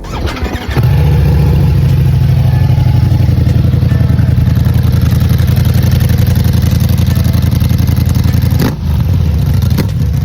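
Ducati Diavel V4's 1,158 cc V4 engine running hard at a steady pitch for about eight seconds, easing off briefly near the end.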